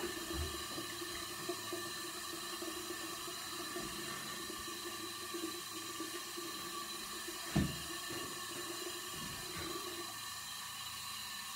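Bathroom sink tap running steadily while a face is rinsed under it, with one sharp knock about seven and a half seconds in.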